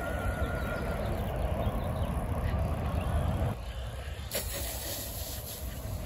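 RC plane's motor giving a faint thin whine that slides down in pitch as it passes, over a low rumbling noise that drops away about three and a half seconds in.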